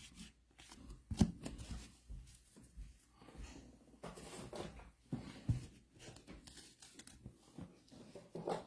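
Baseball trading cards being handled and flipped through by hand: faint, scattered rustles and flicks of card stock, the loudest about a second in and again about five and a half seconds in.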